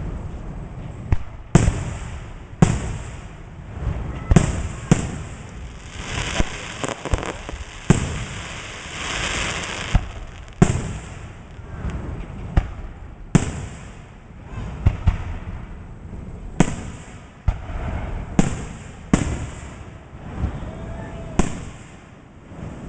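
Fireworks going off: about fifteen sharp bangs at irregular intervals, with a stretch of crackling hiss about halfway through.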